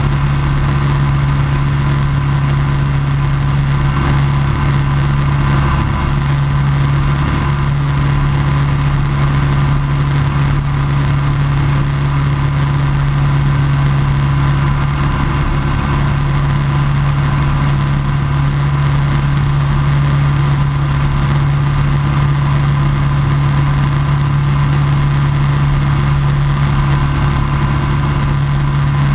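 Ultralight floatplane's pusher engine and propeller running steadily in level flight, a constant low drone with no change in pitch.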